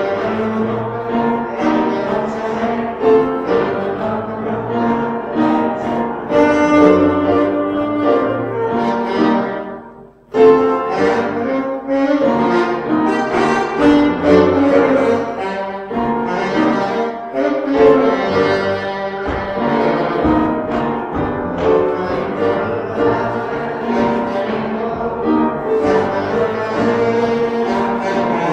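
Live saxophone and piano playing a slow blues hymn. The music breaks off briefly about ten seconds in and starts again.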